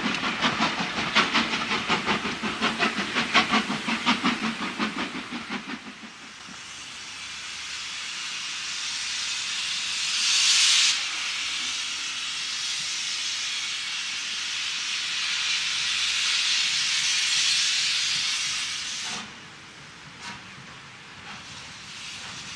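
Coaches of a passing train clattering over the rail joints in a quick, even rhythm, fading out about six seconds in. Then a steady hiss of steam escaping from WD Austerity 2-8-0 No. 90733 as it stands in the platform, swelling briefly about ten seconds in and cutting off sharply near the end.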